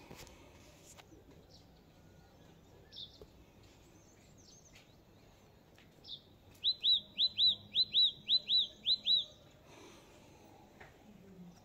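A small bird singing: a few faint scattered chirps, then about halfway through a loud run of about ten quick, arched whistled notes, roughly four a second, lasting a couple of seconds.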